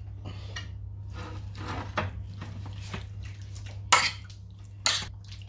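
Metal spoon stirring and scraping through chicken pieces in a yogurt marinade in a ceramic bowl, with a few sharp clinks against the bowl, the loudest about four seconds in. A steady low hum runs underneath.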